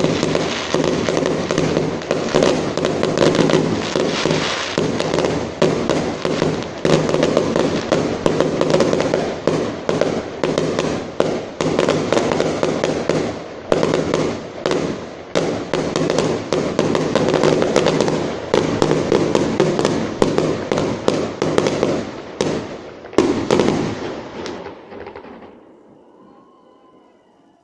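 Fireworks display going off in a dense, continuous barrage of bangs in quick succession, with a last loud bang near the end before the sound dies away.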